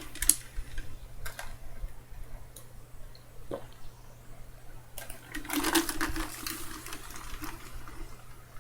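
Scattered light clicks and knocks of a glass of iced water being handled, with a short, noisier sound a little past halfway.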